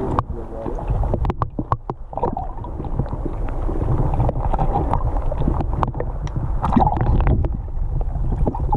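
Muffled, gurgling water noise heard through a camera held underwater: a dense low churning rumble with many scattered sharp clicks.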